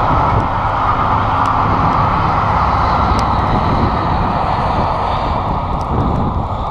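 Coaches of a steam-hauled excursion train rolling past on the rails and drawing away, the noise easing a little near the end, with wind on the microphone.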